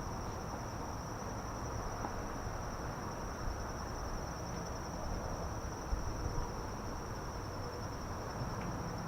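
Crickets trilling: one steady high-pitched trill that never breaks, over a low background rumble.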